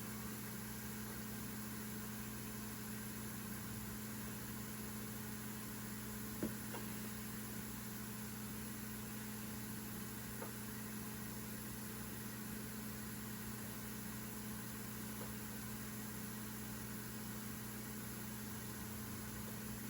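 Steady low machine hum with one light click about six and a half seconds in.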